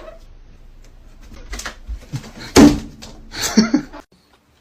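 A few knocks and one loud bang, like a door or cupboard banging, about two and a half seconds in, with a short bit of voice just after.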